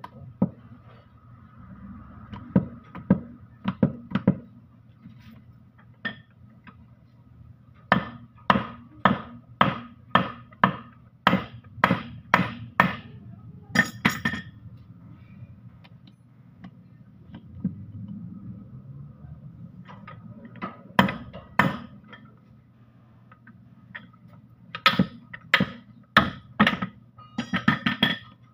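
Sharp metal-on-metal knocks from a tool hammering on the cast housing of a Canter truck gearbox being dismantled, coming in bursts of several strikes about two a second, over a faint steady hum.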